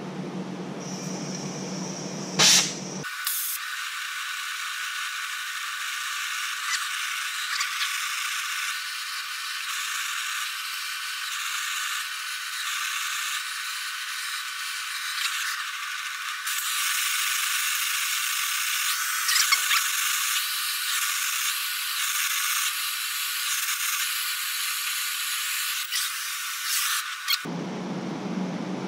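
Oxy-fuel gas torch burning steadily as it works on steel tubing, with one sharp clank about two and a half seconds in. After that the sound turns thin and hissy, with scraping and rattling over it.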